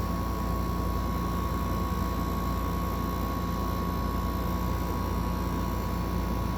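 8,000 BTU window air conditioner running: a steady rush of its fan with compressor hum and a steady high whining tone.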